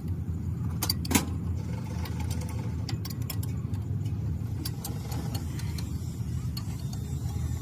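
An engine runs steadily with a low hum, with a few sharp metallic clicks and taps of tools or parts, the loudest about a second in.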